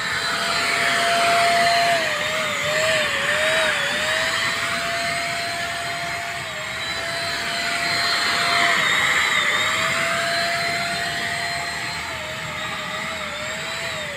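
Multipro ESP-800JY electric spray gun running, its motor giving a steady high whine over the hiss of air and duco paint spraying from the nozzle. The whine dips briefly in pitch several times, and the hiss swells and fades as the gun sweeps along the metal railing.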